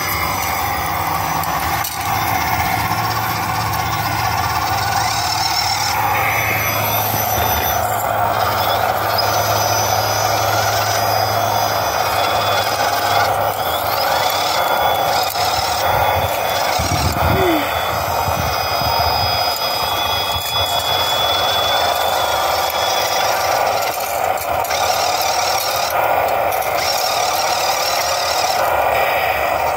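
Small electric motors and gear transmissions of RC rock crawlers whining as they crawl up a rock, the whine wavering in pitch as the throttle changes.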